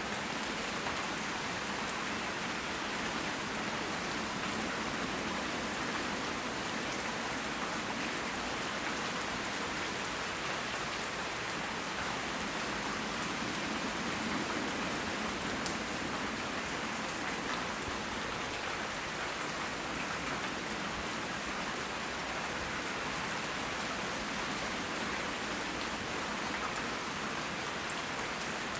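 Steady heavy tropical rain: an even, unbroken hiss of rain falling on surfaces, with scattered faint drop ticks.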